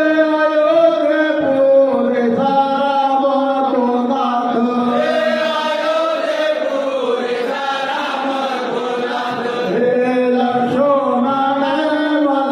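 A group of men chanting together in unison, drawing out long held notes that bend slightly in pitch.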